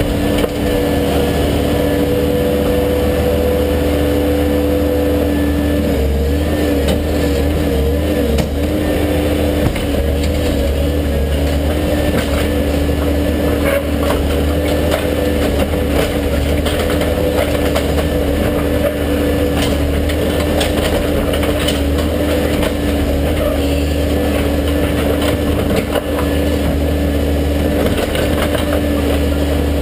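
Case 580 Super M backhoe's diesel engine running steadily under hydraulic load, its pitch wavering briefly about six to eight seconds in. Scattered knocks and scrapes from the backhoe working broken pavement.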